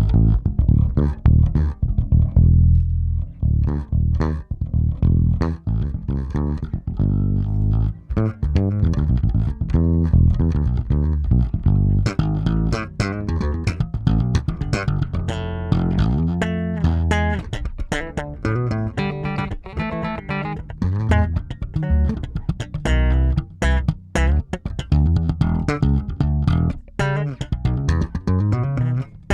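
Electric bass guitar played solo, a busy run of plucked notes through an Empress compressor pedal set to a gentle 2:1 ratio. About twelve seconds in, the attacks turn sharper and brighter.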